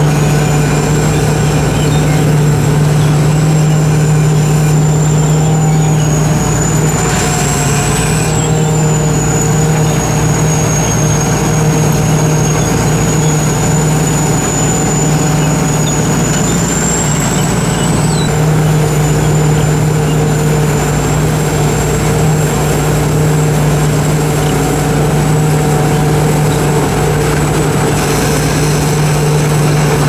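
Sakpattana KM-D 4.1 rice combine harvester with a 225 hp turbocharged engine running steadily under load while cutting and threshing rice: a constant deep hum with a thin high whine that wavers slightly in pitch.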